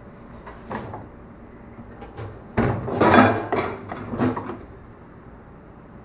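A dish rack loaded with stainless steel pans being slid into a door-type commercial dishwasher: a cluster of metal knocks and rattles about halfway through, loudest around the middle, over a steady low background hum.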